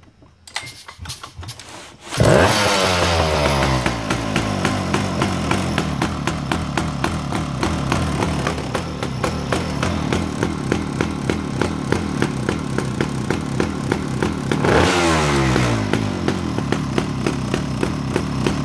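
A Sachs Dolmar 166 chainsaw's two-stroke engine, fitted with a modified air intake and long unused, catches about two seconds in and settles into a steady idle. About two-thirds of the way through it is revved once briefly, then drops back to idle.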